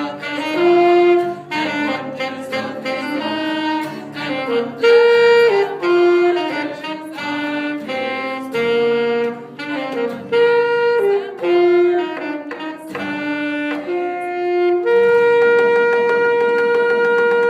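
Saxophone playing a melody in separate notes, then holding a long final note for the last couple of seconds.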